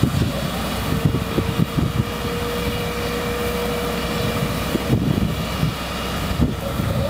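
Industrial shunting locomotive running with a steady rumble as it moves a train of slag pot wagons, with scattered low knocks and a thin steady whine from about a second in until about five seconds in.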